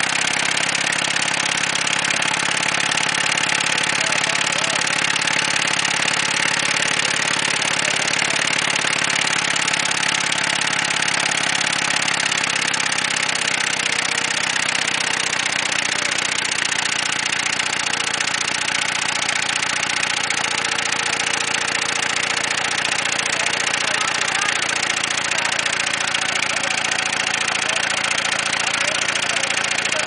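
Ford Taurus engine idling with no oil in the pan, a steady loud clatter of rod knock from oil-starved bearings as it runs toward seizing.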